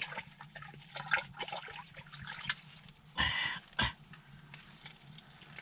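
Water splashing and trickling at an ice-fishing hole as a freshly caught burbot is landed and handled, with scattered small knocks; a short splash about three seconds in is followed by a sharper knock.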